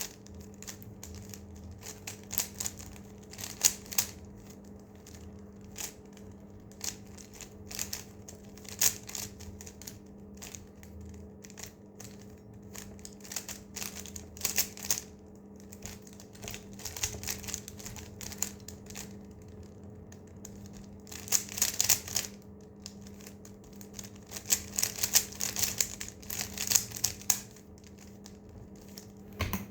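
Rubik's cube being turned quickly by hand: irregular runs of small plastic clicks and clacks as the layers are twisted, with dense flurries of turns a little over two-thirds of the way through and again near the end.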